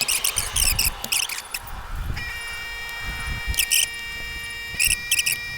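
Electrical tape being pulled off the roll and wrapped around a wire splice, in short squeaky, crackling pulls. From about two seconds in, a faint, steady high whine sounds along with it.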